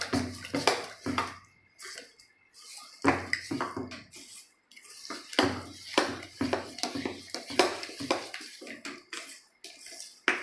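A hand mixing a wet semolina-and-buttermilk batter with chopped vegetables in a stainless-steel pot: irregular clinks and knocks against the steel with wet squelching, pausing briefly twice in the first half.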